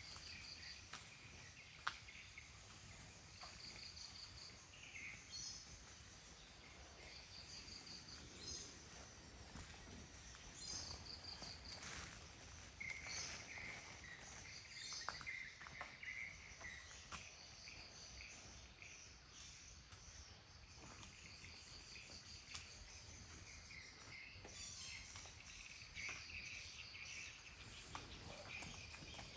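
Faint outdoor ambience of chirping insects and birds: short, repeated high-pitched trills come and go, with lower chirps in between. There is one sharp click about two seconds in.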